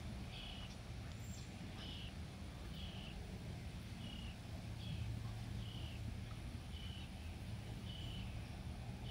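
A bird calling the same short, slightly falling note about once a second, over a low steady hum.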